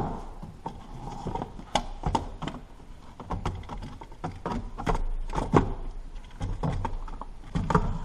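Irregular clicks, taps and knocks of parts and tools being handled while a vacuum hose connector is worked loose.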